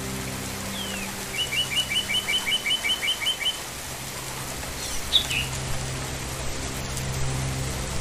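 A small songbird sings a fast, even trill of about a dozen chirps, roughly six a second, and a few seconds later gives two or three short high chirps, over a low steady drone.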